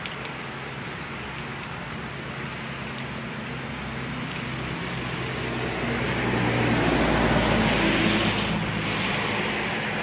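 Steady rain, with a motor vehicle growing louder as it passes on the wet road: engine hum and tyres hissing through the water, loudest about seven to eight seconds in, then fading.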